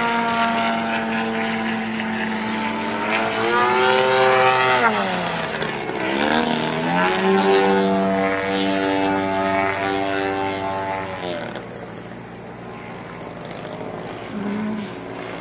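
Radio-controlled model airplane's propeller engine buzzing overhead. Its pitch climbs, then falls sharply about five seconds in, holds steady, and fades away about three-quarters of the way through.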